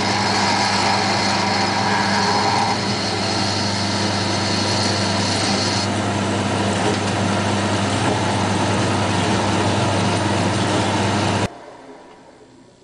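Pillar drill running, its twist drill cutting a hole through soft free-machining steel with a steady motor hum; the drill stops near the end.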